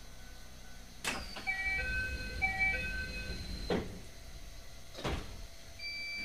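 Narrow-gauge commuter train car: a click about a second in starts a high held electronic tone with a repeating multi-note door chime over it. Another click ends it, and a dull thump follows about a second later, like the doors closing.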